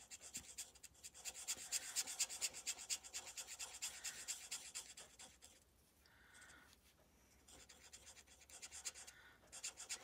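Alcohol-ink blending marker scrubbing over cardstock in quick, faint scratchy strokes, rapid for the first five seconds or so, then easing off, with a few more strokes near the end.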